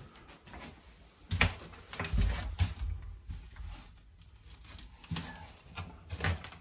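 Irregular footsteps, knocks and thumps on old wooden floorboards, louder about a second and a half in and again near the end.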